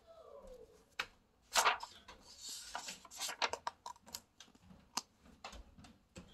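A page of a picture book being turned by hand: paper rustling and sliding, with a sharp snap about a second and a half in and a string of quick clicks and taps as the page is smoothed down.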